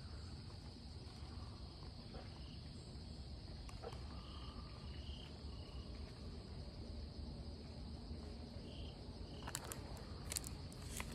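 Steady high insect chorus with a low rumble underneath. A few short rustles and clicks near the end as the picture book is handled.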